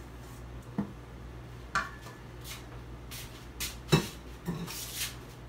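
A stainless-steel mixing bowl knocks and scrapes while cake batter is emptied from it into a round aluminium cake pan. There are a few sharp metal clanks, the loudest about four seconds in, then short scraping sounds.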